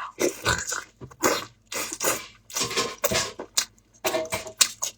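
Close-up eating sounds: chewing and mouth smacks in an irregular series of short bursts.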